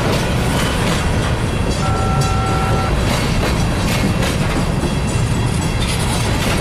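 Empty covered grain hopper cars of a freight train rolling past close by: a steady rumble of wheels on rail with a clicking over the joints, and a brief steady whine about two seconds in.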